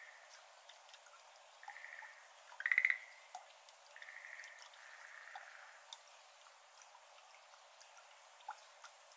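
Schlegel's green tree frogs calling with short pulsed trills, the loudest about three seconds in and softer ones around two and four to five seconds in. Scattered water drops fall into shallow standing water throughout.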